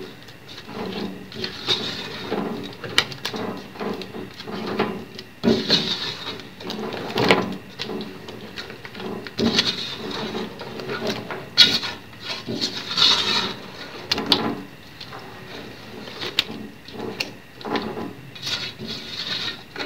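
A spatula stirring chicken pieces through a wet yogurt and tomato masala in a large metal pot, in irregular scraping strokes against the pot with a few sharp knocks on its side.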